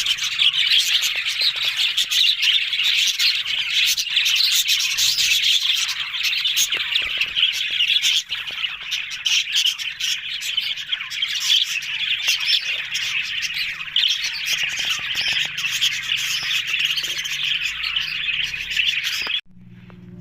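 Budgerigars chattering and chirping continuously, a dense warble of many overlapping calls that cuts off suddenly near the end.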